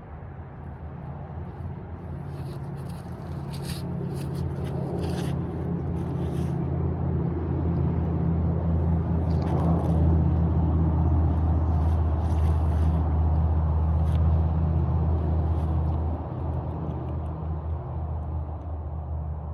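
A steady low engine hum that grows louder over about ten seconds and drops off near the end, with scattered light clicks and scrapes over it.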